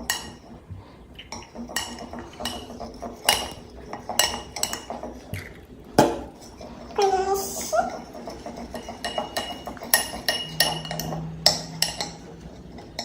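A utensil clinking and scraping against a bowl in irregular strokes while stirring a slime mixture of glue, boric acid water and gouache paint.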